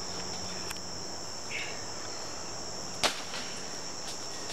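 Steady high-pitched chorus of jungle insects. A single sharp knock breaks in about three seconds in.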